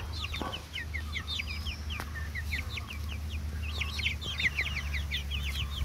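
A boxful of young chicks peeping nonstop: many short, high, falling cheeps overlapping one another, the frightened calling of chicks crowded in a box. A low steady rumble runs underneath.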